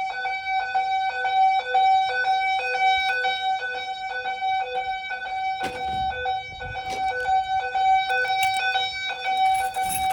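Simplex fire alarm notification appliances sounding during an alarm test: a steady electronic alarm tone with a stack of overtones. A brief knock comes about six seconds in.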